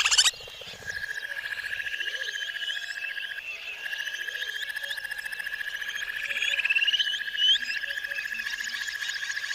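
A frog chorus: one steady high-pitched trill runs throughout, overlaid by many quick rising and falling chirps. Just after the start, a louder, denser chorus cuts off abruptly.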